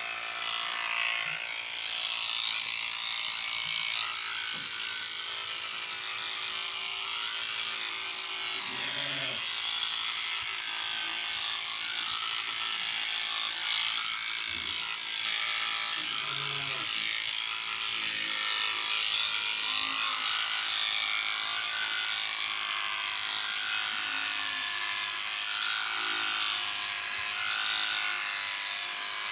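Electric sheep-shearing machine running steadily, its handpiece cutters clipping through a sheep's thick wool.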